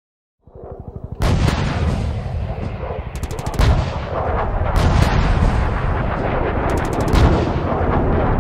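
Gunfire sound effects: bursts of rapid machine-gun fire over a continuous heavy rumble, starting loud about a second in after a short build of quick pulses.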